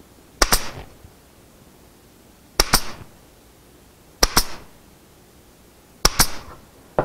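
Pneumatic pin nailer firing headless pin nails into birch plywood: four shots about two seconds apart, each a sharp double crack.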